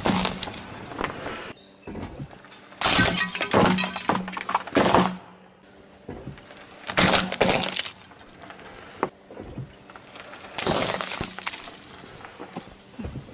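A car tyre rolling slowly over small hard objects on asphalt, a hard-candy lollipop and plastic toys, crushing them: four bursts of cracking and crunching, each lasting one to two seconds. A thin high tone sounds through the last crush.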